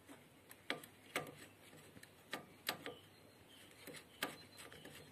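About half a dozen sharp metallic clicks, irregularly spaced, as a chainsaw chain is shifted and clamped link by link in a chain-sharpening jig; the grinding wheel is not running.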